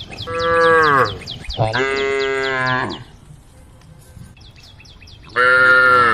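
Cows mooing three times: a short moo that falls in pitch at its end, a longer one right after it, and a third near the end. A bird chirps rapidly and repeatedly underneath.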